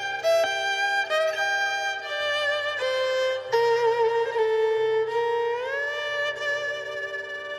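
Black carbon-fibre violin bowed in a slow melody of held notes; near the end it slides up into a long sustained note.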